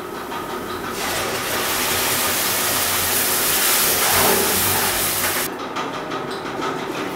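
Tomato purée hitting hot oil and fried onions in a kadhai and sizzling, stirred with a ladle. The sizzle starts about a second in and drops away sharply a little before the end.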